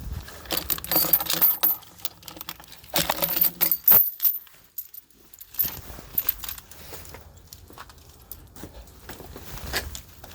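Metal rattling and clicking of a padlock being handled, in two bursts of clatter during the first four seconds, then softer scattered clicks.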